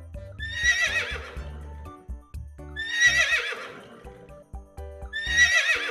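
Horse neighing three times, evenly spaced, each a wavering whinny about a second long, over background music.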